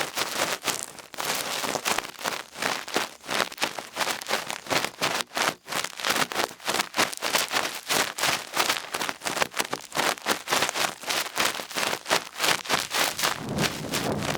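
Cotton ear swab rubbed and twirled in an ear close to the microphone: fast, crackly scratching strokes, about four or five a second. A lower rumbling joins in near the end.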